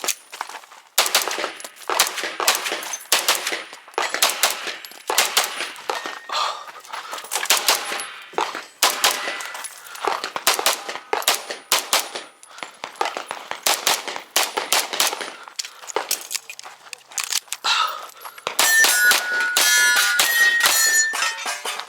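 Limcat Phantera 9mm Major Open-division pistol fired in a long string of shots at uneven spacing, with metallic ringing near the end.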